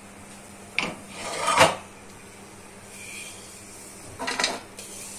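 Wooden spatula scraping roasted besan mixture across a metal kadhai. There are two scrapes: one about a second in that builds to a loud finish, and a shorter one a little after four seconds.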